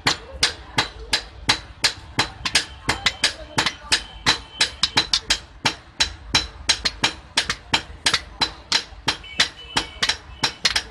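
Hand hammer striking a red-hot steel boti blade on an anvil: quick, ringing metal blows, about four to five a second, as the blade is hot-forged.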